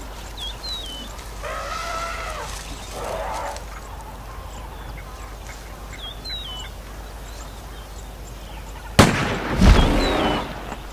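Wildlife sound design: a drawn-out animal call that bends in pitch, with a few high bird-like chirps, then a single rifle shot about nine seconds in, followed by a low rumbling echo.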